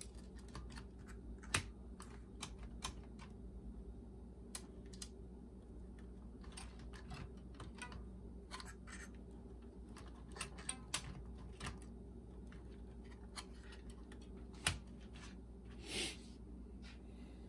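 Irregular light clicks and taps of hands and a screwdriver working on a boombox's plastic case and cassette mechanism, with a sharper knock about a second and a half in and another near the end, followed by a short scrape.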